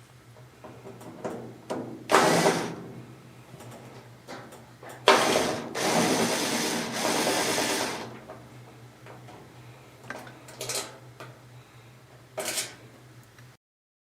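A small electric motor whirring in short bursts: a brief one, then a longer run of about three seconds, then two quick ones, over a steady low hum.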